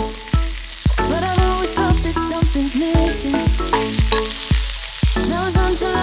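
Food sizzling as it fries in a pan, under background music with a steady beat of about two strokes a second and a bass line.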